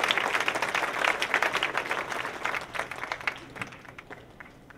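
Audience applauding, loudest through the first few seconds and dying away near the end.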